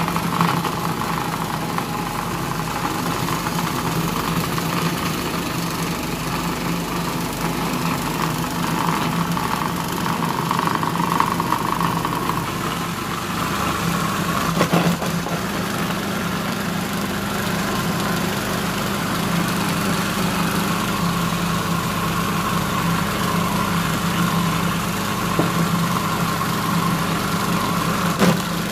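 Food processor motor running steadily as its blade churns roasted almonds and sesame seeds into a sticky amlou paste that has begun to release its oil. There is a brief knock about halfway through and another near the end.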